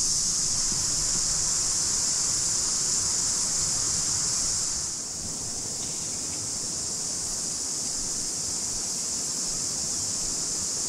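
Steady high-pitched drone of a cicada chorus over the even rush of flowing river water; the chorus eases a little about five seconds in.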